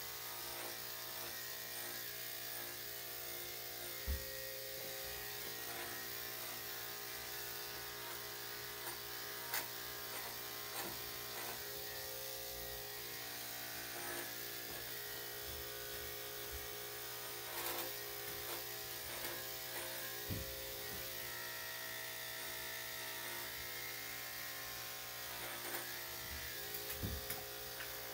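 Electric dog grooming clippers fitted with a #7 blade running steadily as they shave a Shih-Tzu/Poodle's body coat, with a few light knocks now and then.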